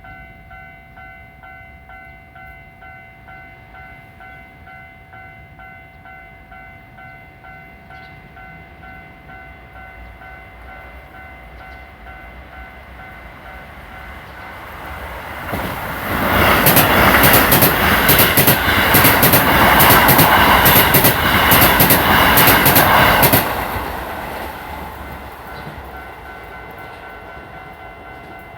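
Japanese level-crossing warning bell dinging in a steady repeating pattern. About fifteen seconds in, Keisei 3000-series electric trains pass each other through the crossing, loud for about eight seconds with the wheels clacking in quick knocks over the rail joints, then fading back to the bell.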